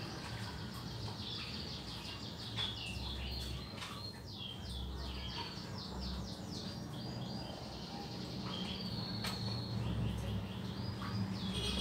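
Small animal chirping: runs of quick, high chirps, several a second, over a steady low hum.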